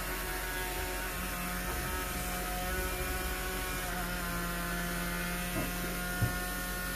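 Homemade motor-driven generator rig running off a 12-volt battery, giving a steady electrical hum with many overtones, and one light knock about six seconds in.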